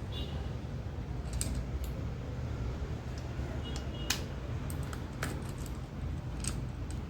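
A few sharp, irregular clicks and taps, like small parts or tools being handled, over a steady low hum.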